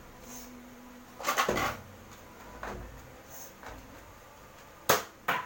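Clatter of objects being handled and moved, with a short rustling burst about a second in and two sharp knocks or clicks near the end.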